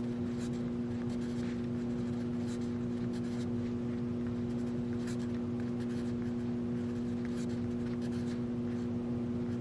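A pen writing on a paper worksheet in short, irregular scratchy strokes, faint against a steady low hum.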